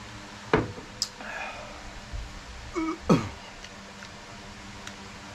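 A man clearing his throat twice with short, sharp sounds falling in pitch, right after a drink from a small glass. A light click comes about a second in, and there are a couple of faint hums between them.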